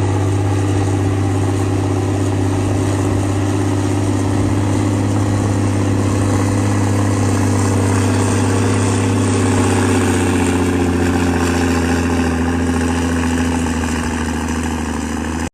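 Heavy machine's engine running steadily under a strong low hum, its pitch easing slightly lower in the second half.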